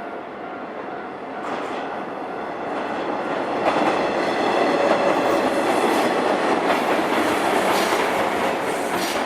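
Train passing over a level crossing, its wheels clacking over the rail joints. It grows louder over the first few seconds, is loudest in the middle and begins to fade near the end.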